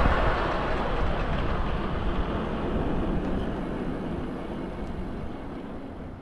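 Street traffic noise: a passing vehicle's rumble dying away gradually.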